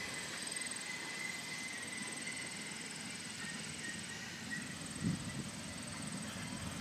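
Passenger cars of a 16-inch gauge grand scale steam train rolling past on the track: a low, steady rumble of wheels on rail, with a single knock about five seconds in.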